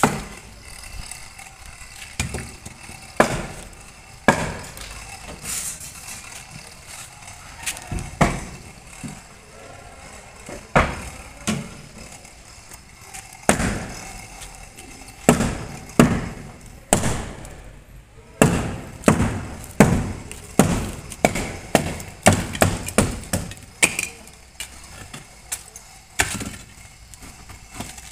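Sharp knocks of lightweight aerated concrete (hebel) blocks being tapped and set into place in a wall, with some scraping. The knocks are irregular at first, then come in quick runs of several a second in the second half.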